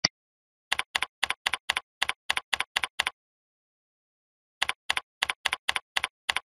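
Typing on a computer keyboard: a single click at the start, then a run of about ten keystrokes, a pause of about a second and a half, and about eight more keystrokes, each a quick double click.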